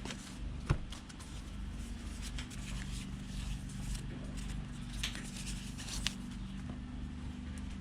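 A steady low hum with a few short, sharp clicks, the loudest under a second in and others about five and six seconds in, from small phone parts and tools being handled during a repair.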